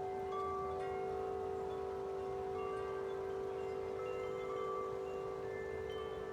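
Wind chimes ringing in the wind: a few low tones hum on steadily while higher notes are struck here and there.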